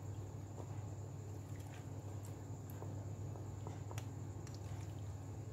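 Quiet room tone with a steady low hum and a faint high whine, under scattered soft taps and clicks as cubed mango is set and pressed into whipped cream in a glass dish.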